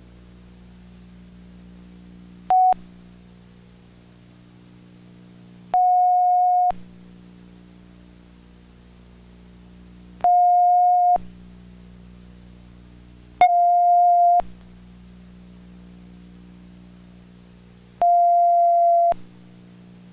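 Low steady electrical hum broken by a short blip and then four loud, steady, single-pitch electronic beeps of about a second each, a few seconds apart; the hum cuts out while each beep sounds.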